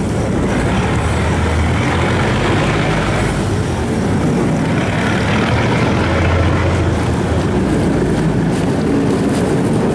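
Cargo barge's engine running steadily as the barge passes close by.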